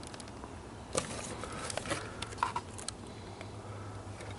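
Handling noise: scattered light clicks and faint rustles, the sharpest about a second in, over a steady low hum.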